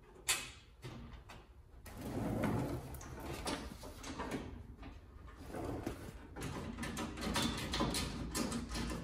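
Hands handling car body parts and brackets: a sharp click about a third of a second in, then from about two seconds on irregular scraping and rubbing with many light knocks and clicks.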